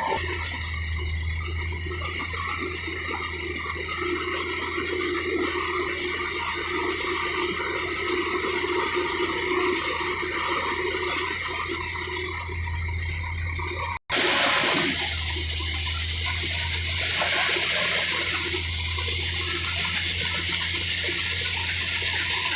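Komatsu D155 bulldozer's diesel engine running steadily: a constant low drone under a rushing noise. It cuts out for an instant a little past halfway, then carries on the same.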